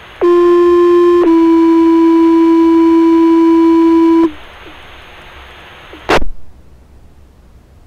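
Two-tone sequential fire-department pager alert received on a handheld scanner radio: a one-second tone, then a slightly lower tone held about three seconds, over steady radio hiss. A short squelch burst follows about six seconds in as the transmission ends.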